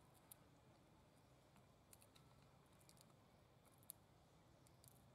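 Near silence: a faint steady background with a few sharp, faint clicks scattered through, about six in all.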